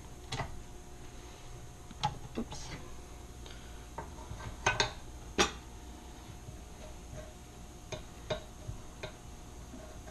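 Scattered clinks and knocks of kitchen utensils against metal cake pans and a mixing bowl as batter is divided, the loudest few close together about five seconds in.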